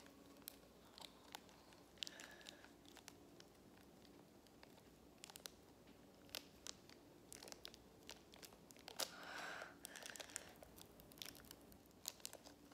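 Faint crinkling and tearing of a small plastic blind-bag wrapper being opened by hand: scattered light clicks and rustles, with a longer rustle about nine seconds in.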